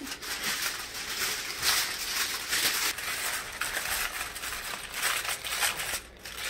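Aluminium foil crinkling as hands press and crimp it tightly around the rim of a disposable foil baking pan to seal it. A steady run of crinkling that breaks off briefly near the end.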